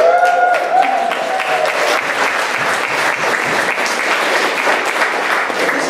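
A congregation applauding, dense steady clapping, with one voice calling out a held cheer over the first second or so.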